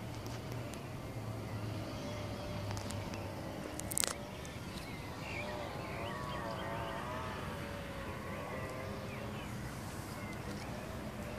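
Outdoor ambience: a steady hum of distant traffic, with a faint wavering tone in the middle and a sharp click about four seconds in.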